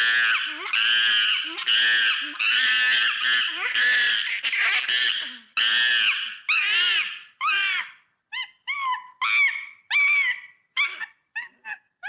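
A macaque's high-pitched calls, one after another in quick succession, then breaking into shorter, quieter calls with gaps between them for the last third.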